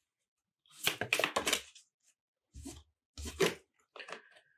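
Thick cardboard Dixit picture cards being handled: four short bursts of sliding, rustling card noise, the longest about a second in.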